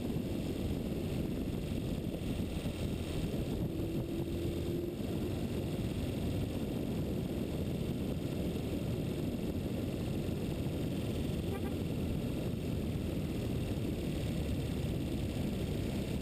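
Steady low rush of wind buffeting the microphone of a camera travelling fast down a mountain road, with road rumble beneath it.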